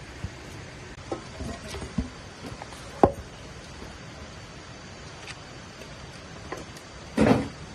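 Irregular knocks and cracks of dry wood being handled, with a sharp crack about three seconds in and a short, louder clatter near the end.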